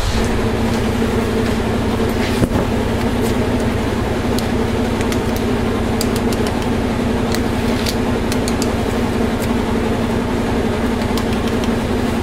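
Washing machine running with a steady hum, with a few light clicks over it.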